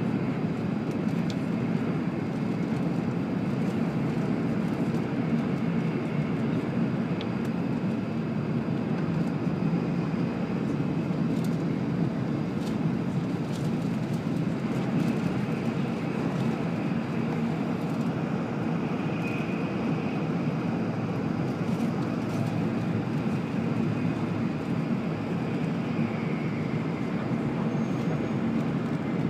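Steady running noise of an E7 series Shinkansen at speed, heard from inside the passenger cabin, with a few faint clicks.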